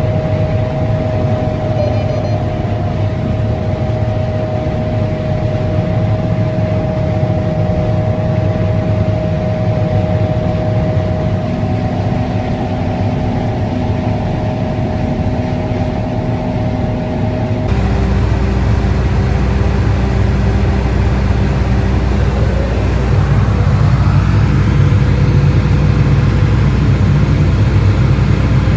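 John Deere S660 combine running while harvesting corn: a steady engine and machinery drone with a held whine. About two-thirds of the way through it changes abruptly to a deeper, louder rumble.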